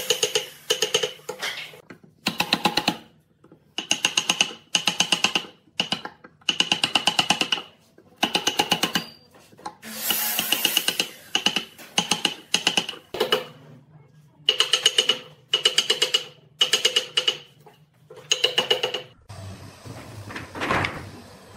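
A wide steel chisel driven by hand through saw-kerfed pine, each stroke a short rapid rattle as the thin slats between the cuts snap away, repeated about once a second. Near the end the strokes stop and wooden strips clatter as they are handled.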